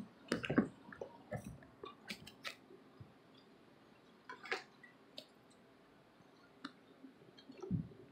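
Faint, irregular clicks and soft knocks of a phone being handled and moved, bunched together in the first second or so and thinning out after, with a dull low thump near the end.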